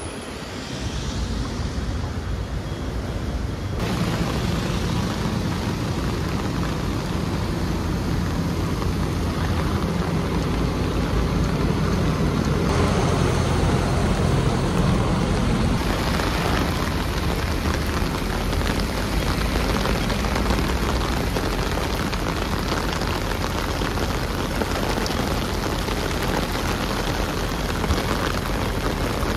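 Heavy rain pouring down on a city street, a steady loud hiss that grows louder about four seconds in.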